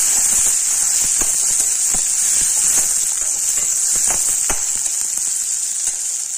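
Chopped onion and tomato sizzling in hot oil in a stainless steel kadai, a steady hiss, while a metal spoon stirs and scrapes against the pan with a few short clicks.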